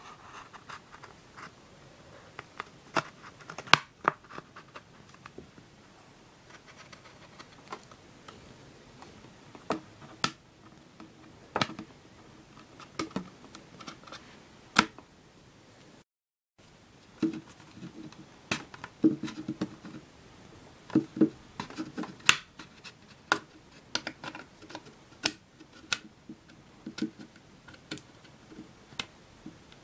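Kobo Glo e-reader's plastic back cover being pried off with a thin wooden stick: irregular sharp clicks as its snap clips pop loose one after another, with light scraping of the stick along the seam between them.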